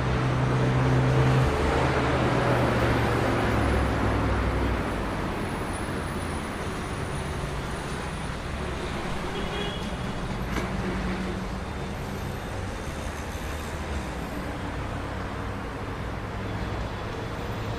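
Road traffic in a jam: steady noise of idling and slow-moving vehicles, with a low engine hum that is louder in the first few seconds and then eases off a little.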